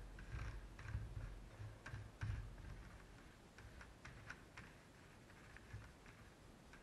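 Stencil-ink bottle's applicator tip dabbing on a paper stencil over tennis racket strings: faint, irregular ticks and taps, a few a second, thinning out after about five seconds.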